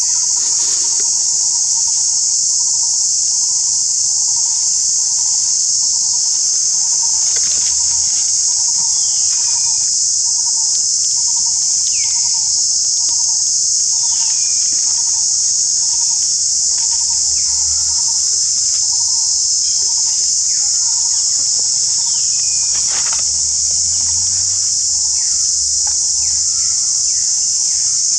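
Loud, steady, high-pitched buzzing of an insect chorus, with a lower note pulsing evenly beneath it and scattered short falling chirps.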